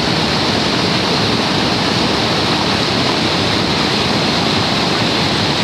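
Niagara River rapids rushing: a loud, steady noise of white water pouring over rocks, even throughout with no breaks.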